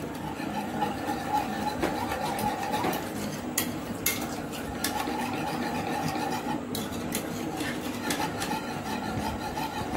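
A spoon stirring thin finger-millet (ragi) porridge in an aluminium saucepan as it cooks, a steady swishing with scattered sharp clicks of the spoon striking the pan.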